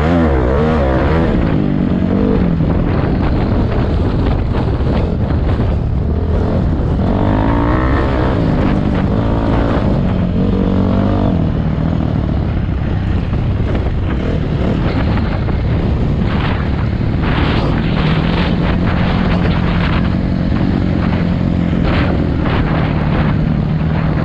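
Dirt bike engine running as the bike is ridden, its pitch rising and falling as the throttle opens and closes.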